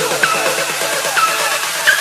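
Background electronic dance music with a steady beat and a figure that repeats about once a second.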